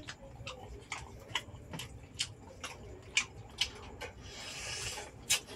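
Close-up eating sounds of people eating oysters by hand: irregular small wet clicks of chewing and lips, about two or three a second, and a hissing slurp lasting about a second, about four seconds in, as an oyster is sucked into the mouth.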